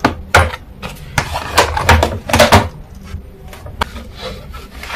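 Kitchen containers and lids being handled: a quick run of sharp knocks and clicks, thickest in the first three seconds, as tins are covered for the freezer.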